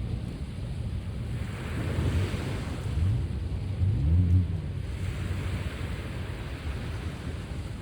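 Sea waves washing ashore, two swells of surf rising and falling about two and five seconds in, over a steady low rumble of wind on the microphone. The loudest moment is a short low rumble about four seconds in.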